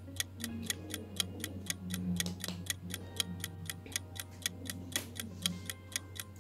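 Clock ticking sound effect, quick and even at about four ticks a second, filling a pause left as thinking time for a quiz question.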